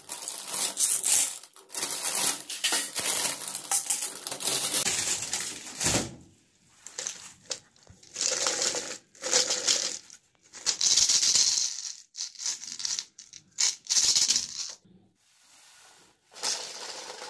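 A clear plastic bag crinkling as plastic pool-ball containers are pulled out of it. From about six seconds in, the hollow balls rattle in short bursts as they are shaken and set down on a paper plate, small candies loose inside them.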